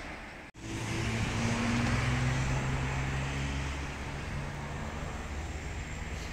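Road traffic: a car's low engine hum over tyre and road noise. About half a second in there is a brief dropout, where the audio cuts, then the hum comes back louder and eases a little after a few seconds.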